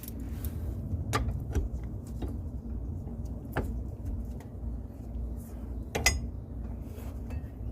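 A few sharp metallic clicks and clinks of hand tools, a wrench and socket handled at the rear brake caliper bolts, over a steady low hum.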